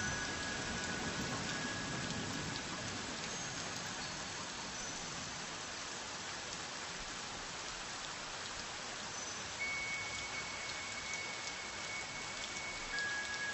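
Steady, soft rain ambience: an even patter of rainfall. A few faint, held high tones sound over it at the start and again from about ten seconds in.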